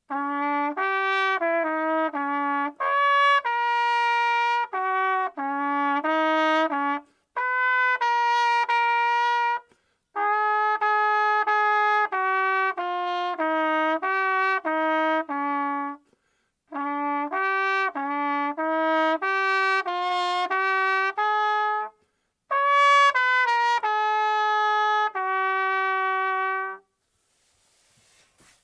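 A solo instrumental melody, one pitched wind instrument playing slow phrases of separate notes. The phrases are broken by short, complete silences, and the playing stops about 27 seconds in.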